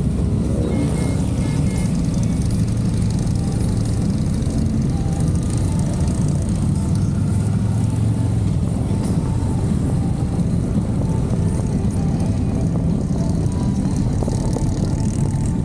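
Motorcycle engines running steadily on the ride, a continuous low drone.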